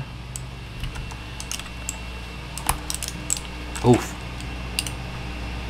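Scattered light plastic clicks and taps from a mechanical keyboard being handled and worked on, irregular and a second or so apart.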